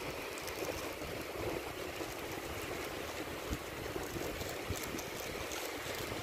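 Thin plastic bag rustling and crinkling faintly as a hand works inside it, with a couple of light clicks, over a steady background hiss.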